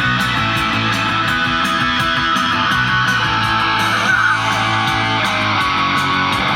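Instrumental rock music with strummed electric guitar and a steady beat, played loud through a car's three-way audio system.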